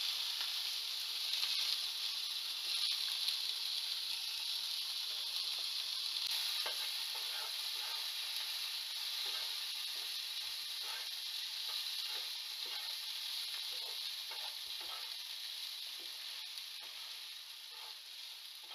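Diced tomato, onion and dry coconut sizzling in oil in a frying pan, stirred with a wooden spatula that scrapes the pan now and then. The sizzle fades a little toward the end.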